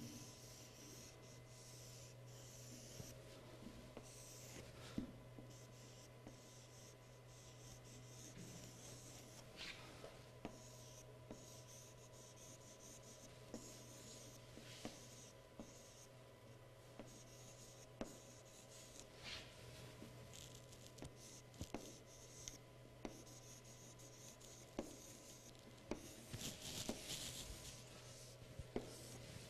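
Chalk scratching and tapping faintly on a chalkboard as cursive letters are written in short strokes, with a longer scraping stroke near the end.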